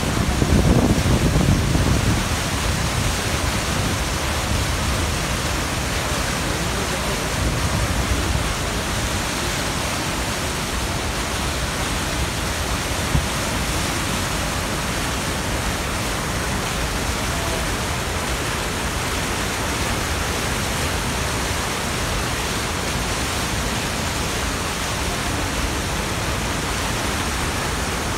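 Niagara River rapids rushing to the brink of Niagara Falls: a loud, steady, even rush of water, with a heavier low rumble in the first couple of seconds.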